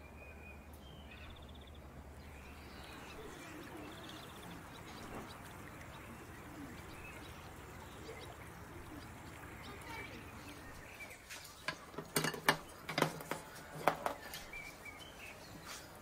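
Quiet outdoor ambience with faint bird chirps. About twelve seconds in comes a short run of loud, sharp clicks and knocks, a dozen or so over two to three seconds.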